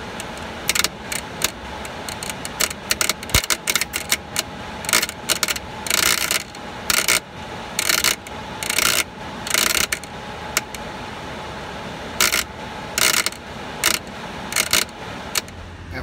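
Blower relay on an air handler's control board chattering: irregular loud bursts of rattling buzz, some short clicks and some about half a second long, over the steady run of the blower. The relay is jumping in and out, which the technician thinks may be what blew the board's 5 amp fuse.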